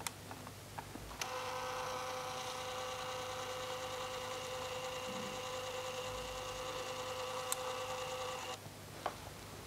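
Kaiser Baas PhotoScanner feeding a photo through its slot with its motor: a steady electric whine. It starts with a click about a second in and cuts off suddenly near the end.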